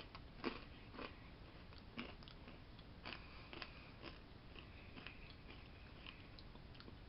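Faint crunching of a person chewing crunchy granola clusters in the mouth, with irregular crunches about every half second to a second, loudest in the first two seconds.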